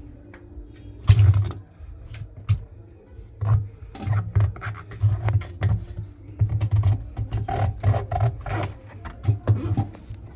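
Irregular clicks, knocks and scraping from hands working on a washing machine's parts, with frequent dull low thumps throughout.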